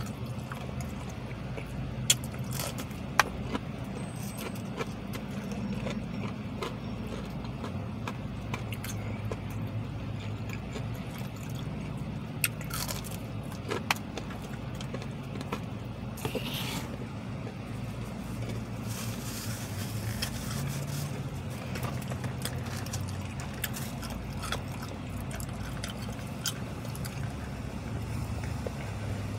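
Quiet eating sounds: chewing of fried chicken strips and handling of a paper wrapper, with scattered small clicks and scrapes, over a steady low vehicle hum.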